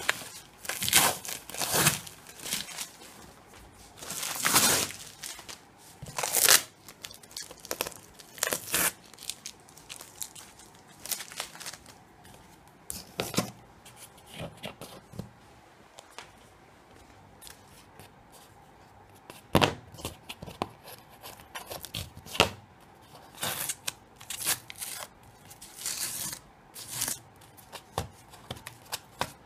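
Cardboard box and plastic wrapping being torn open and handled: a run of irregular rips, rustles and scrapes, with a quieter stretch in the middle.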